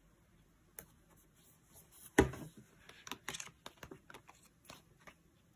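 Hands handling sticker sheets and paper: a sharp tap a little after two seconds in, then a quick run of small clicks and rustles for about two seconds.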